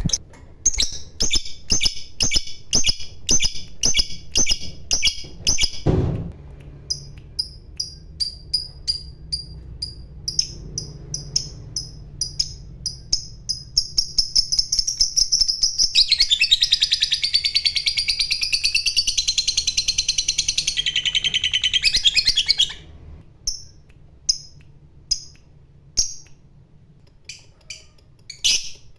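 Fighter lovebird calling: rows of sharp high chirps that quicken into a dense, continuous chattering trill (the 'ngekek') lasting about six seconds, then break back into scattered chirps. A single knock comes about six seconds in.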